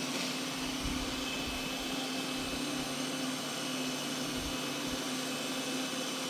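iRobot Roomba robot vacuum running: a steady motor hum with a high, thin whine over the hiss of its suction.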